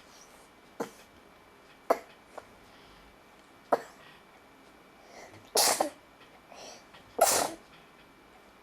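A one-year-old child sneezing: a few short, sharp sounds in the first half, then two sneezes, about halfway through and near the end, the last one the loudest.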